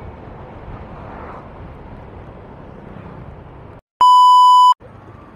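Steady road and wind noise of a moving motorcycle, which cuts out almost four seconds in for a short, loud, steady beep: a TV test-pattern tone played over colour bars as an edit transition. The riding noise returns right after the beep.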